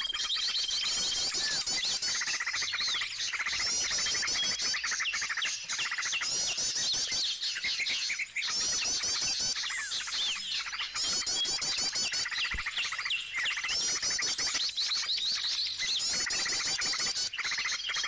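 Many small songbirds chirping and chattering. A bout of rapid, high chattering comes back every three to four seconds, and a short, steady, high whistled note sounds now and then.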